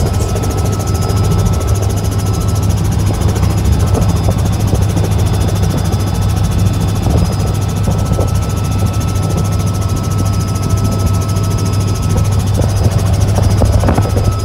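Helicopter engine and rotor noise heard from inside the cabin: a steady, loud drone with a strong deep hum.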